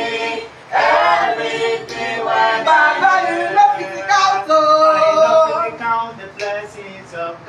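A small group of men and women singing a worship song together a cappella, with no instruments, some notes held long.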